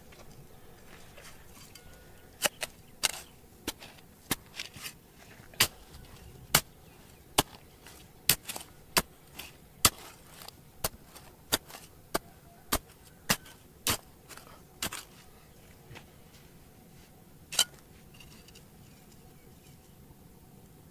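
A hand tool striking hard ground or rock again and again: sharp knocks, about one or two a second, some twenty in all, stopping after about fifteen seconds with one more a little later.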